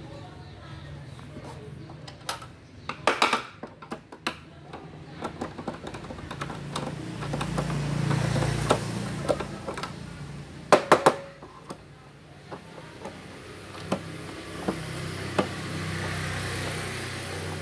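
Handling and screwing together the plastic casing of an induction cooker: scattered clicks and knocks of plastic and a screwdriver, with the loudest clusters about three seconds in and about eleven seconds in.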